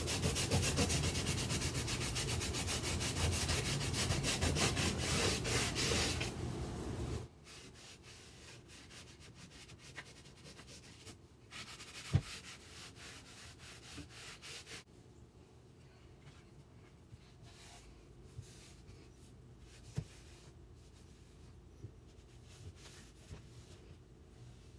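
A rag rubbing hard over a chalk-painted wooden dresser drawer, wiping the top coat off where Vaseline underneath keeps it from sticking, so the paint chips away. The rubbing stops suddenly about seven seconds in, leaving fainter rubbing and a few light taps.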